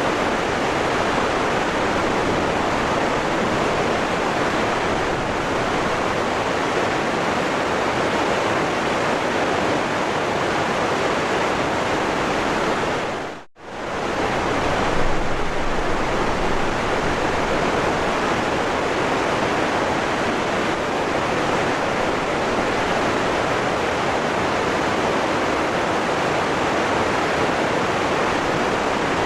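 Waterfall rushing steadily. About halfway through, the sound dips briefly almost to silence and swells straight back.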